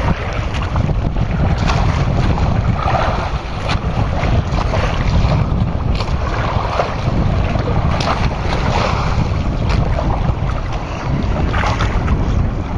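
Wind buffeting the microphone over sea water rushing and splashing against a small outrigger boat under way on choppy open water, a steady low rumble with scattered brief splashes.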